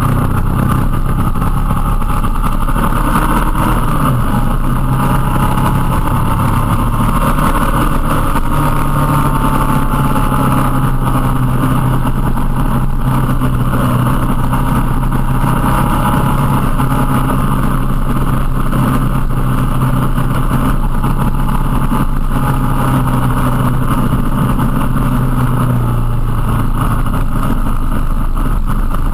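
Motorcycle engine running steadily while riding, its pitch shifting a little as the throttle changes, with wind rushing over the bike-mounted camera's microphone.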